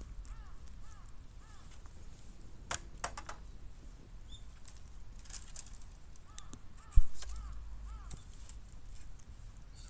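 Bamboo crackling and popping as it burns, in scattered sharp clicks, with a small bird calling in short repeated chirps at the start and again after the middle. A single dull thump about seven seconds in is the loudest sound.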